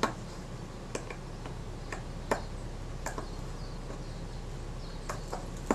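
Small, irregular metal clicks of a jeweller's screwdriver on the case screws of a Synchro-Compur leaf shutter as they are done up snug, about eight ticks over a faint low hum.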